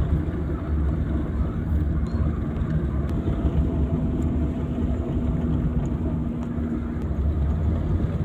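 Car cabin noise while driving slowly on a narrow road: the engine and tyres make a steady low rumble. A steady hum comes in about three seconds in and stops about seven seconds in.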